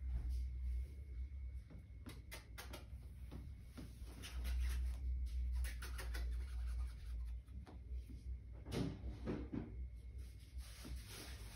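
Light clicks and scratching of a puppy's claws on a hardwood floor as it walks about, in short runs about two seconds in and again near the end.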